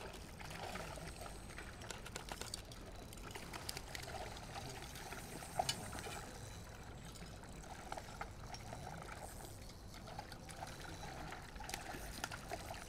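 Water trickling steadily, with scattered faint clicks and one sharper click a little before halfway.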